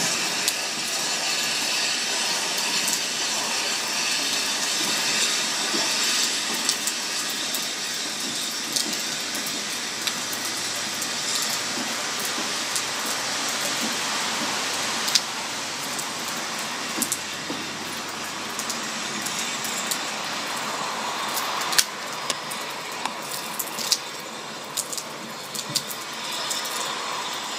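Narrow-gauge steam locomotive pulling its train away, steam hissing and the sound slowly fading as it draws off, under rain and wind noise. Scattered sharp clicks run through it.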